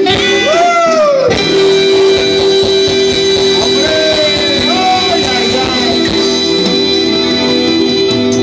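Live band playing loud through a PA, with electric guitar and a long held note. About half a second in, a note slides up and falls back down, and smaller slides follow around the middle.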